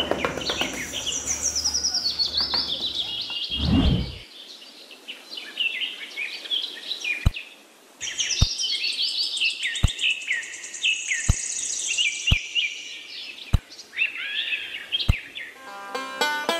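Small birds chirping and twittering in quick high notes, with a short low whoosh about four seconds in and a series of sharp clicks about a second apart in the second half. Music comes in near the end.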